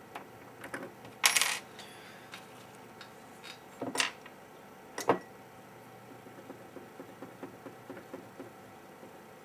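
Light metallic clinks and taps of small parts and a tool against a metal BGA reballing jig as a GPU chip is seated in it. A short clatter with a brief ring comes about a second in, then single clinks at about four and five seconds.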